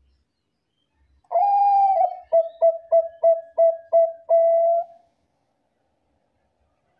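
Zebra dove (perkutut, Bangkok type) giving one song phrase. It opens with a long held coo, breaks into a quick run of about six short stuttering coos, and ends on another held note.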